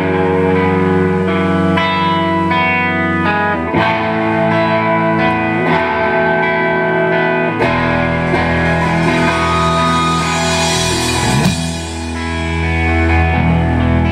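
Live rock band playing an instrumental passage, led by distorted electric guitars including a Telecaster-style guitar, with bass underneath. The low end fills out about halfway through, and a high cymbal-like wash with a brief sliding note follows a few seconds later.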